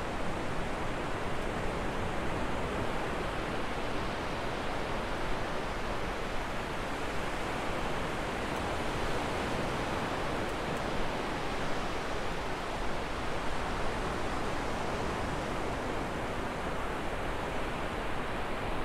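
Ocean surf on a beach: a steady rushing wash of breaking waves that swells slightly now and then.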